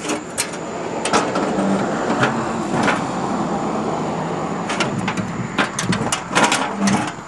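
Lawn tractor's hood panel being lifted and swung open, with a series of clanks and knocks and a scraping rustle about a second in.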